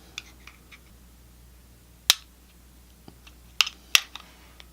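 Small hard-plastic clicks and taps from the mini PC stick's case being pried open and handled, with one loud click about two seconds in and two more in quick succession past the middle.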